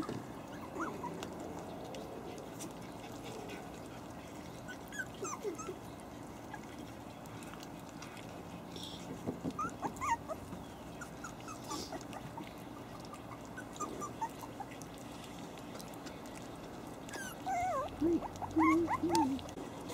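Havanese puppies whimpering and yipping in short, high squeaks scattered throughout, with a louder run of whines near the end.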